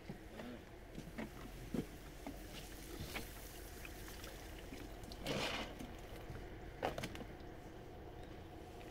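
A mesh bait-fish trap hauled out of the lake by its line: scattered light knocks and clicks, and a brief splash of water running off it about five seconds in, with another short rattle about a second later.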